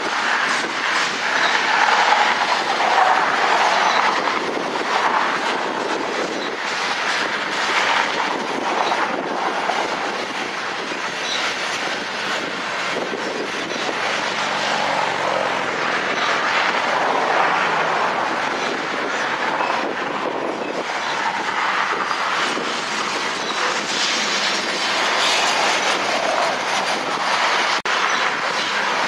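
Loaded coal hopper cars of a long freight train rolling past close by: a continuous steel-wheel-on-rail rumble that swells and eases every few seconds as the cars go by.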